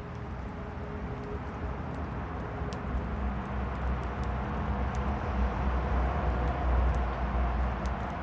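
Feather-stick fire burning in a small pocket wood stove: a steady rushing noise with scattered sharp crackles and pops, and a low rumble that grows louder from about three seconds in.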